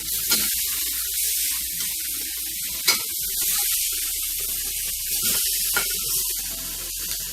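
T-bone steaks sizzling in a frying pan: a steady hiss with a few sharp pops.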